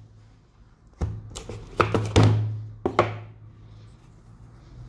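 A cardboard phone box is handled on a desk and opened, giving a quick run of irregular knocks and thuds about one to three seconds in, each with a low hollow ring that fades.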